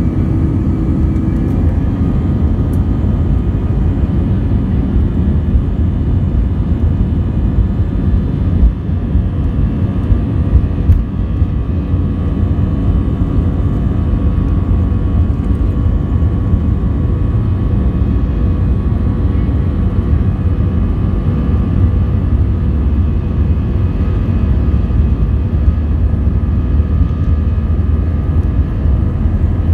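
Airbus A320 jet engines and airframe rumbling steadily with a faint whine, heard from inside the cabin as the airliner rolls along the ground. A couple of brief knocks come about nine and eleven seconds in.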